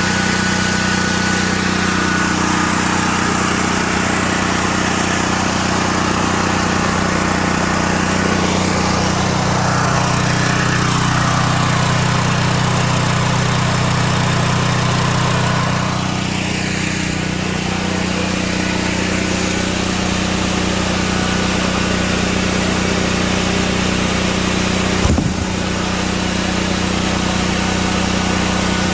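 Small gas generator engine running steadily at constant speed. It gets a little quieter about halfway through, and there is one short knock near the end.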